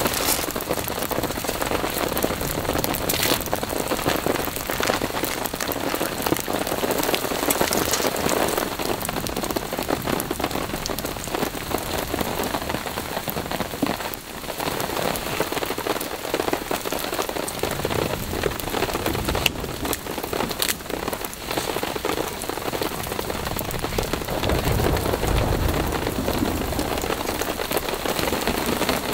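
Heavy rain falling steadily, a dense hiss with many small drop ticks. A low rumble comes in near the end.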